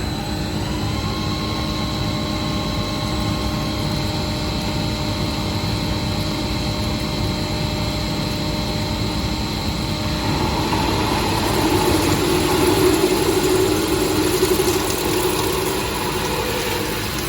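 CNC drilling special-purpose machine running with a steady mechanical hum and held tones; about ten seconds in a louder whirring sets in for several seconds, then eases off.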